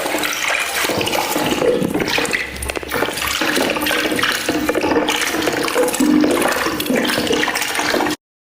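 Peeing sound effect: a steady rush of water splashing into a toilet bowl, which cuts off abruptly near the end.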